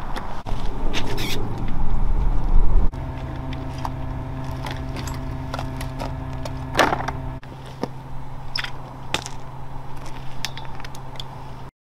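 Clicks, clinks and scrapes of a long-handled grabber picking up dead rats off gravel, over a steady machine hum that starts about three seconds in. The sharpest clink comes about seven seconds in.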